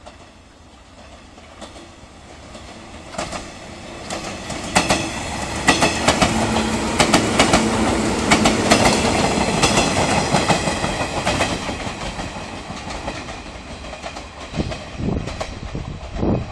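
A JNR 115 series electric multiple unit approaching and passing close by: wheels clicking rapidly over the rail joints with a steady hum under them, swelling over several seconds, loudest in the middle, then fading as it goes by. A few louder clacks near the end.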